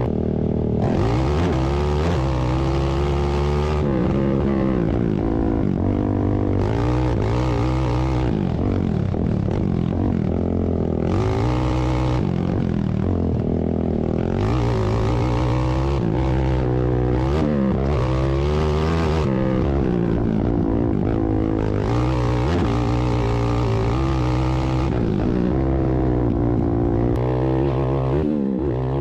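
Several ATV engines racing together, revving up and down as they accelerate and back off, their overlapping pitches rising and falling.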